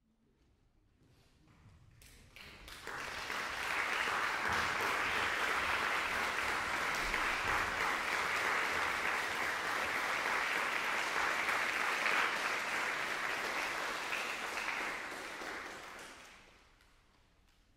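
Audience applauding, swelling over the first few seconds, holding steady, then dying away about sixteen seconds in, as the performers take the stage.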